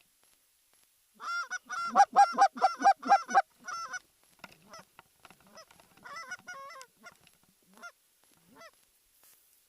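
Goose honking: a fast run of about eight loud honks, roughly four a second, starting a little over a second in, then softer, scattered honks and clucks that die away near the end.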